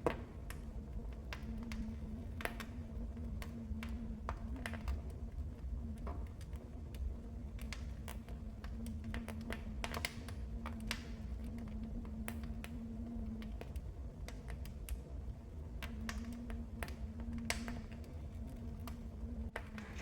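Fire in a fireplace crackling, with irregular sharp pops and snaps over a low steady rumble of the flames.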